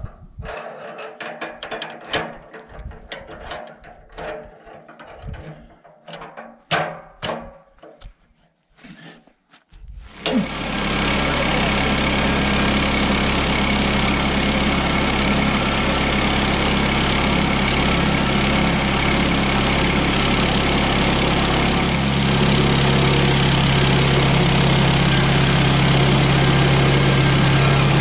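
Irregular knocks and clanks as a pine log is worked into place on the sawmill bed with a cant hook. About ten seconds in, a Woodland Mills HM126 portable bandsaw mill's engine comes in suddenly and runs steadily while its band blade cuts along the pine log. The engine note grows slightly louder about twenty-two seconds in.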